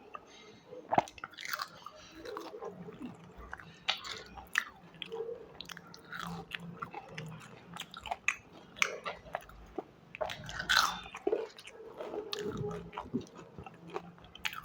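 A person chewing and biting food close to the microphone, with irregular sharp crunches and clicks.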